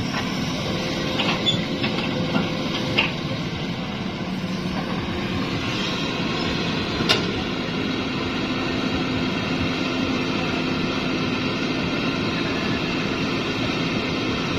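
Hitachi excavator's diesel engine running steadily at work, with a few sharp metallic knocks in the first three seconds and another about halfway through.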